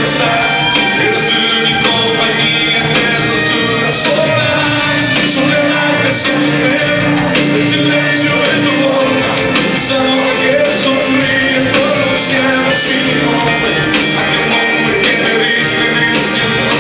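Live band playing a pop-rock song at concert volume, with singing over it and regular cymbal hits, in a large hall.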